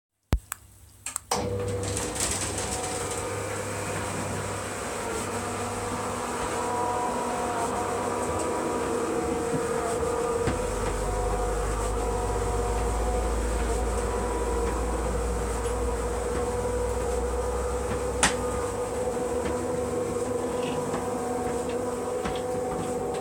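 Insulated automatic roller garage door running on its motor, a steady mechanical hum with a few clicks just before it starts and a single sharp click about eighteen seconds in.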